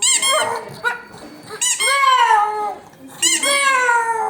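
A dog whining and howling in three drawn-out calls, each rising briefly and then falling in pitch. The first is short and the second and third last about a second each.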